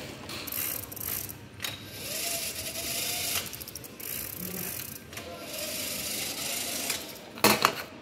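Rack, gears and chain drive of a hand-worked door-energy generator rig running as the lever arm is pushed, in about three spells of a second or two each, with a loud sharp clatter near the end.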